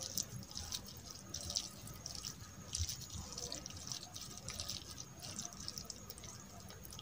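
Cooked rice being squeezed and mixed by hand into soupy masoor dal, a run of irregular wet squelches and small crackles.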